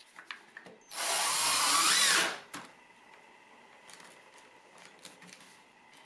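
Cordless drill with a 1-1/4 inch auger bit run briefly with the bit in the air, a burst of a bit over a second whose whine rises in pitch just before it stops. Light clicks and handling noises follow.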